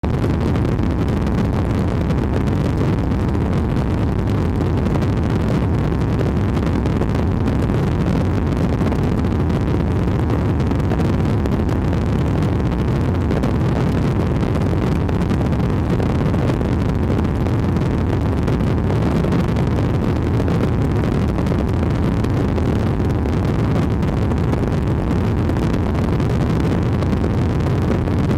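Steady rumbling drone of an aircraft engine and airflow, heard from inside the cabin, with wind buffeting the microphone. It does not change throughout.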